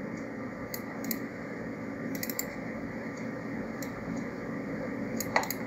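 Steady room hiss with a few soft clicks of a computer mouse: one about a second in, a pair about two seconds in, and a sharper one near the end.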